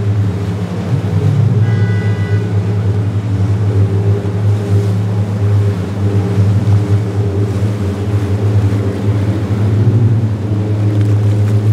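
Jet skis running at low speed close by: a steady engine drone over churning, splashing water, with a brief high-pitched tone about two seconds in.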